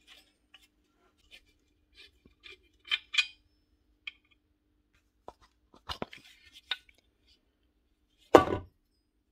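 Parts of an electric motor being handled as the armature is worked out of its plastic end housing: scattered light clicks, clinks and scrapes of metal on hard plastic, with a single louder knock near the end.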